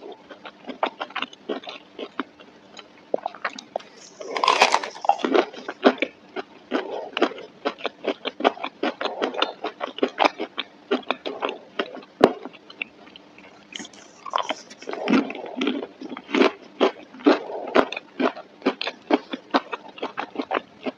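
Biting and chewing a breaded chicken nugget: a steady run of crisp little clicks and crunches, heaviest about four seconds in and again around fifteen seconds.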